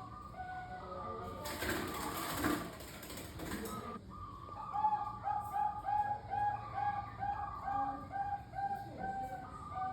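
Zebra dove (Thai-bred 'Bangkok' perkutut) singing its cooing song of short repeated notes, breaking into a fast even run of about two coos a second from about five seconds in. A louder noisy sound covers the song from about one and a half to four seconds in.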